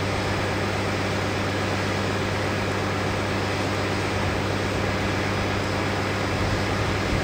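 British Rail InterCity 125 (HST) Class 43 power car's diesel engine idling at a standstill: a steady drone with a constant low hum.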